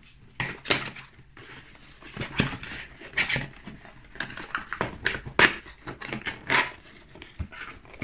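Cardboard retail box of a GoPro Hero7 being opened by hand: irregular rustles, scrapes and light taps as the end flap is pulled open and the cardboard sleeve slides off the clear plastic case.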